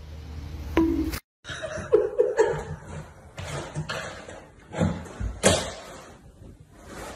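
A person laughing, with a couple of sharp knocks in the middle.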